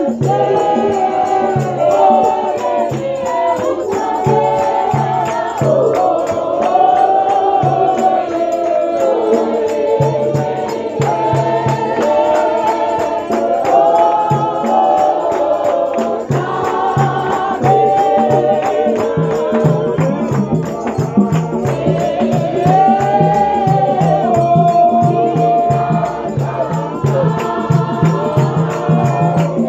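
A choir singing a church song together, with rattles shaking along and a steady low beat underneath.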